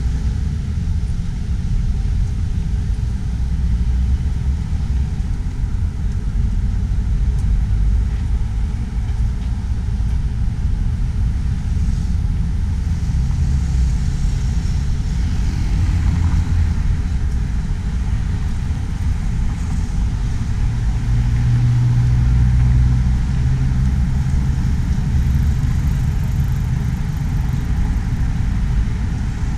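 Road traffic passing with a steady low rumble. One vehicle's engine comes up louder about two-thirds of the way through, then fades.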